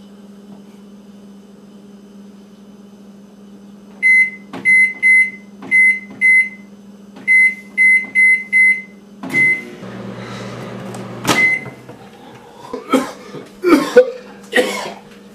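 Microwave oven keypad beeping as buttons are pressed: about a dozen short, high, loud beeps in quick groups over some five seconds. Then a clunk and the oven starts running with a low hum, with two more single beeps; near the end a run of sharp knocks and clatter.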